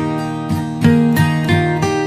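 Background music: a plucked string instrument, like an acoustic guitar, playing a steady run of notes.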